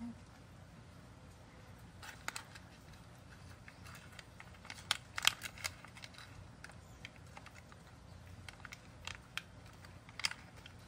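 A cat crunching small Churu Bits treats: an irregular scatter of short, sharp crunches and clicks, thickest about five seconds in and again near the end.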